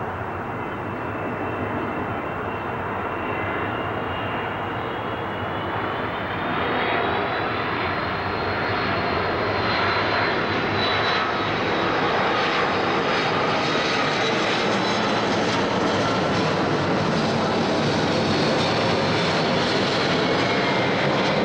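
Airbus A330 airliner on approach with its landing gear down, jet engine noise growing louder as it comes in low overhead. A high whine climbs in pitch about a third of the way in, then holds over the rushing engine noise.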